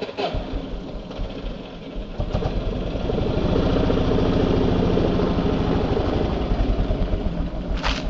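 Motorcycle engine starting about two seconds in, then idling with a steady rapid beat, and revving unevenly near the end as the bike pulls away.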